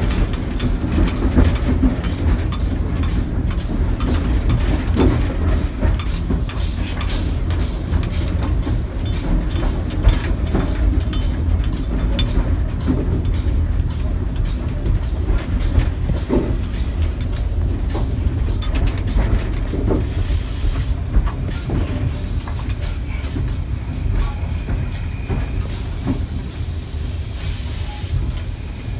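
Steam locomotive running, heard from its cab: a steady low rumble with the clatter of wheels over rail joints, thick at first and thinning out later. Two short hisses come about twenty seconds in and again near the end.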